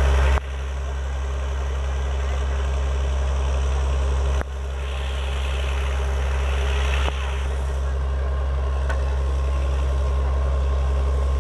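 Truck-mounted borewell drilling rig running, its heavy diesel engine making a steady, deep hum with machinery noise over it.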